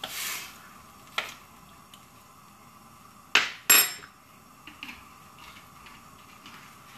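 Kitchenware being handled: two loud, sharp knocks about a third of a second apart some three and a half seconds in, with a lighter click before them and a few faint clicks after.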